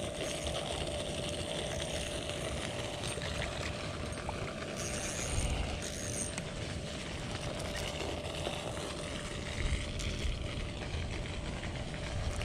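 Spinning reel being cranked to bring in a hooked small bass. A steady low rumble of wind on the microphone runs under it, with a few brief scratchy sounds about midway.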